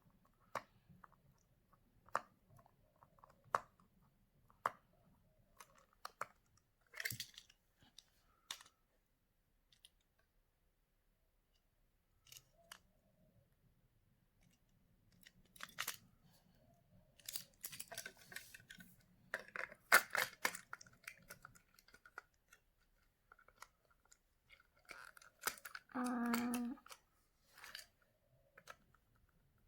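Intermittent clicks, snaps and rustles of a plastic Plarail toy train being handled while AA batteries are fitted into it, with a brief low hum near the end.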